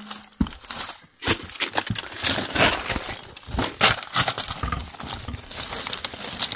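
Dry leaf litter rustling and crackling close up as a hand rummages through it in a rock crevice, a dense run of small crunches and clicks.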